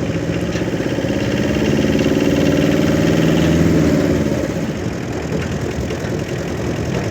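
A motor vehicle's engine running, swelling louder about two seconds in and easing off again after about four seconds.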